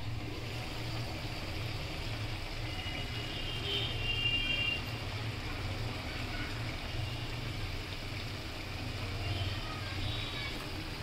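A wok of fish curry simmering on the stove: a steady low rumble and hiss.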